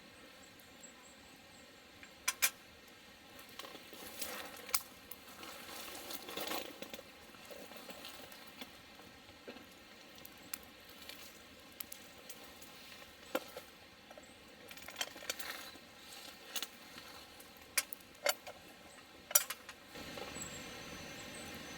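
Scattered sharp clinks and taps of small hard objects being handled, with soft rustling between them; the background noise rises a little just before the end.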